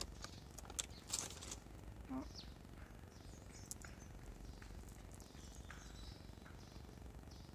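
Small birds chirping faintly, with a few soft clicks and mouth sounds from chewing a fish-shaped pastry close to the microphone.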